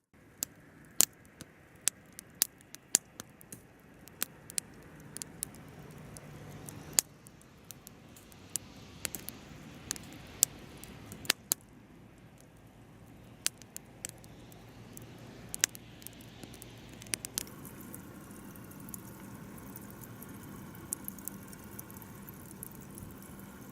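Wood campfire crackling: irregular sharp pops and snaps over a low, steady hiss of burning wood. A faint steady low hum joins in the second half.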